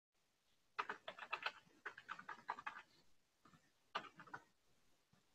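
Faint typing on a computer keyboard: a quick run of keystrokes lasting about two seconds, then a short second run about four seconds in.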